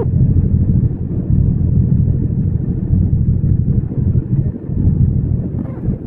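Yamaha MT-07 (FZ-07) 689 cc parallel-twin engine and exhaust running under way: a deep, steady rumble whose level rises and falls a little.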